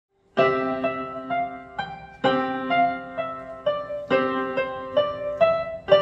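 Electronic keyboard played with a piano sound: an even melody of struck notes, about two a second, over held lower notes, starting about half a second in.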